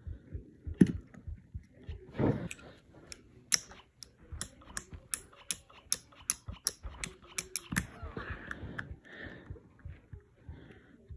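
A run of sharp clicks, about three a second for some five seconds, after a dull knock, ending in rustling handling noise.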